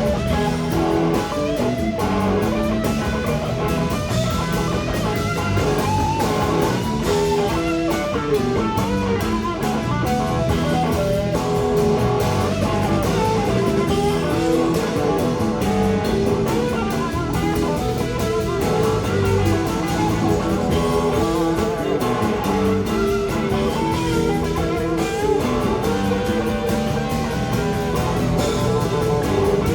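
Live blues-rock band playing an instrumental passage, with electric guitar out front.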